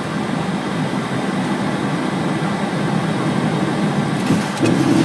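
Steady flight-deck noise in a Boeing 727-200: a continuous rumble of engines and airflow or air conditioning. It grows louder near the end.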